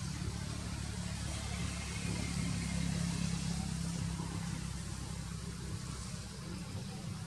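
An engine running steadily with a low hum that swells slightly a few seconds in, over a continuous high hiss.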